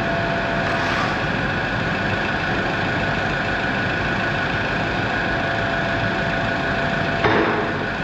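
Heavy diesel equipment engine running steadily at idle with a steady whine over it. A single sharp metallic knock about seven seconds in.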